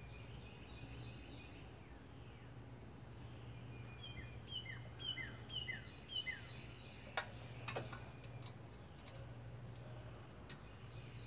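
Small birds chirping in a run of quick falling notes over a steady low hum. Past the middle and near the end come a few sharp clicks as a new ignition coil is handled and fitted against a small engine's flywheel.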